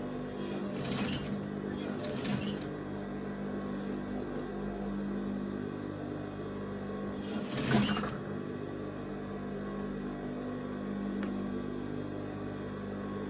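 Electric sewing machine running steadily as it stitches hair wefts onto a wig net. A few brief handling noises cut in about a second in, a couple of seconds in, and a louder one near the eight-second mark.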